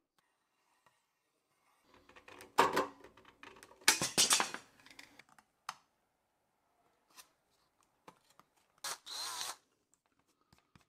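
Thin brass shim sheet being handled and flexed by hand: a few short rattling, crinkling bursts of sheet metal with light clicks in between. The loudest burst comes about four seconds in.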